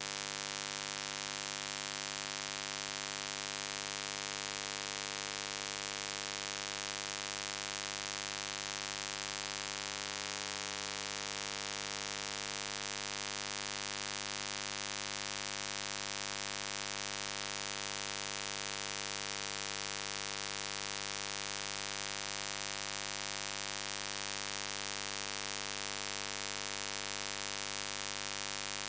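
Steady electrical mains buzz with hiss: a stack of unchanging tones that never varies, typical of hum picked up on the audio feed.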